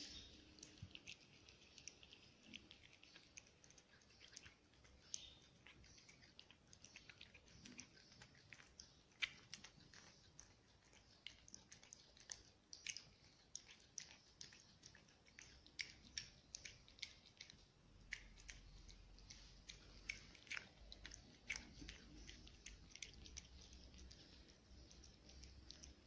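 A cat chewing and licking food from a plate: faint, irregular wet clicks and smacks of its mouth.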